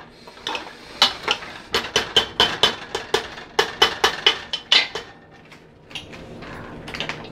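Metal ladle clinking and knocking against the sides of an aluminium pressure cooker while stirring beef pieces in water, a quick, irregular run of sharp strikes that stops about five seconds in as the ladle is lifted out.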